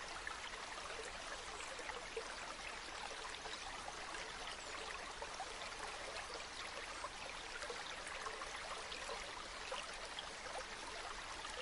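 Mountain waterfall: a steady rush of falling water, flecked with small splashes.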